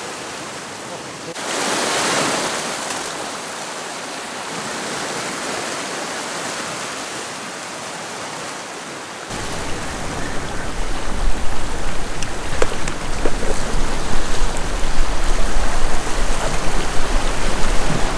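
Sea water rushing and washing around rocks, a steady rush that swells briefly about two seconds in. About nine seconds in a louder, gusty low rumble of wind on the microphone comes in over it.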